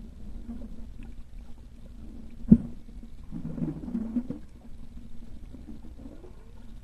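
Muffled underwater sound picked up through a waterproof camera housing: a low steady hum, a sharp knock about two and a half seconds in, and a warbling gurgle a second later.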